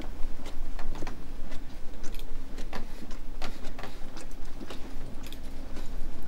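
Footsteps on a hard corridor floor: sharp heel clicks at a walking pace, a few a second, over a low steady rumble.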